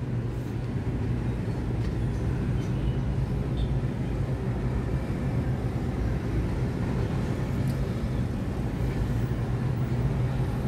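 Steady low machine hum with a wash of road traffic, heard from a tower crane's cab high above a busy highway.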